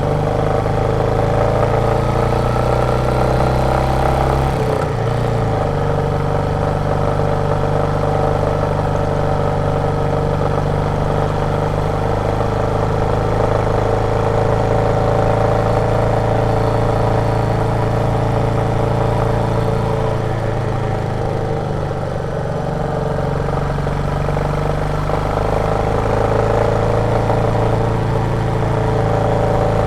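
Royal Enfield Meteor 350's single-cylinder thumper engine running under way at steady cruising speed. The engine note shifts abruptly about four and a half seconds in and eases briefly a little past the middle.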